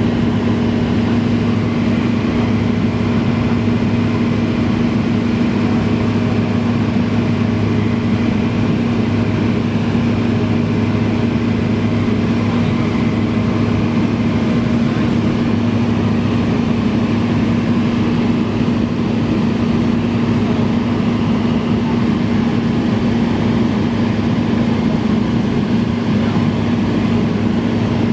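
Cessna 172's piston engine and propeller droning steadily in flight, a constant low hum with no change in pitch or loudness.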